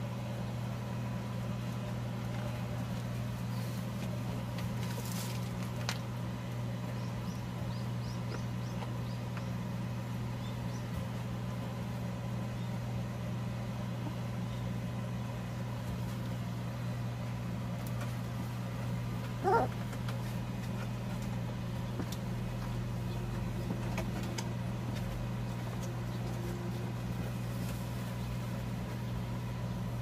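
Steady low electric hum from a running electric fan. About two-thirds of the way in there is one short sliding squeak from a nursing puppy.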